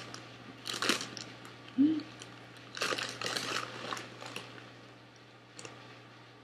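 Plastic snack bag crinkling in a few short bursts, with a brief hum from a voice about two seconds in.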